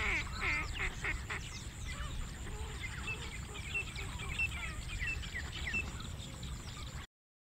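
Outdoor bird calls: a few pitched honking calls in the first second or so, then quick high chirps from small birds, over a steady low rumble. The sound cuts off suddenly about seven seconds in.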